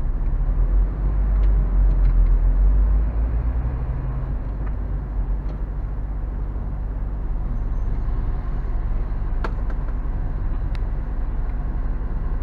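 Lorry engine idling, heard from inside the cab: a low rumble, louder for the first three seconds and then steady, with a few faint clicks.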